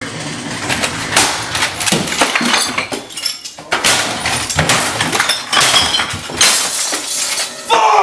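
Repeated crashes and clattering as objects are knocked about and broken, with glass bottles clinking and breaking.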